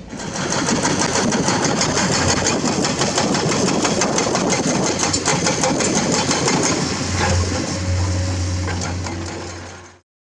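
Komatsu excavator working in limestone: the diesel engine runs steadily under rapid, dense clattering and scraping of rock. The sound cuts off suddenly near the end.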